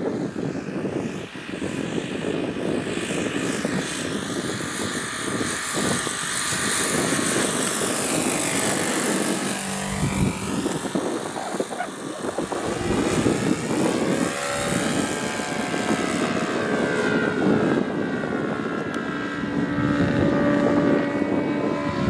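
OS FS-95V four-stroke glow engine of a radio-controlled L-4 Grasshopper model plane, running steadily in flight. Its sound sweeps as the model makes a close low pass about nine seconds in.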